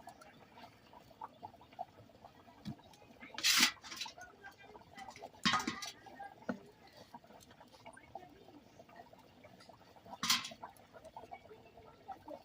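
Paratha dough being rolled out with a rolling pin on a board: light, irregular taps and scrapes, with three short, louder swishes about three and a half, five and a half and ten seconds in.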